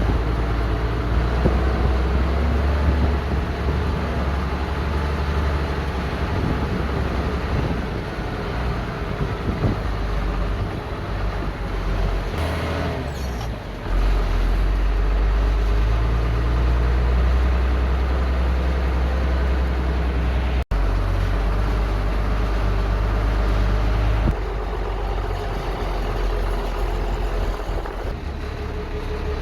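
5.9-liter Cummins diesel engine in a Ford bucket truck, running and purring steadily. Its sound gets louder about halfway through.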